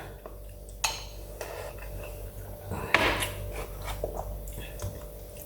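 A few separate clinks and scrapes of cutlery against a plate during a meal, the loudest about three seconds in.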